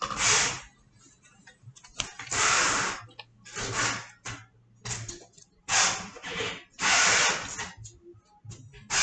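A sheet of paper being handled close to the microphone and cut with scissors: a series of noisy rustling, crinkling bursts, each under a second, with small ticks between them.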